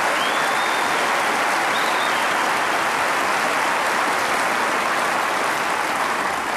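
Audience applauding: a large crowd clapping steadily, easing off near the end.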